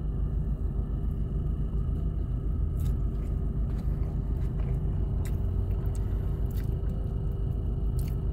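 Steady low rumble of a car, heard from inside the cabin, with a person chewing food close to the microphone and a few faint crunches.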